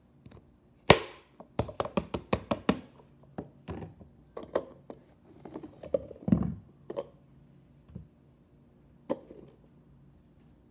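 Plastic slime jars set down and handled on a granite countertop: a run of sharp knocks and taps, with a duller thud a little after six seconds in.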